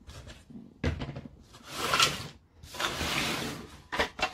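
Large resin model kit pieces being picked up and moved on a tabletop: a knock about a second in, then two longer sweeping noises as a part is slid and handled, and a few light clicks near the end.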